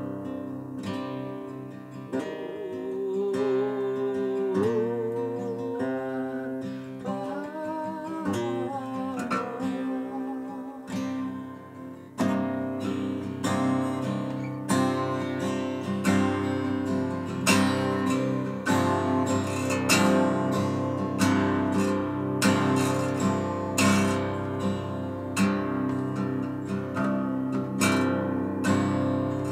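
Acoustic guitar played solo: a softer melodic passage, then chords strummed in a steady rhythm from about twelve seconds in, getting louder.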